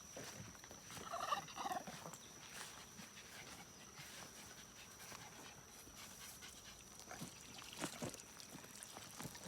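A short, wavering, fairly high animal call about a second in, with a thin steady high tone throughout and a few faint knocks near the end.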